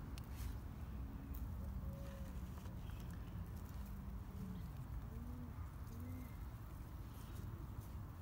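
A dove cooing, a short series of soft low arched coos in the middle, over a steady low rumble. Faint clicks and rustles of hands working potting soil.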